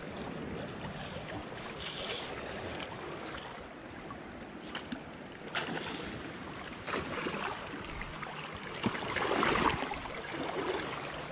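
Steady rush of flowing creek water, with a few short knocks and a louder swell of noise about nine seconds in.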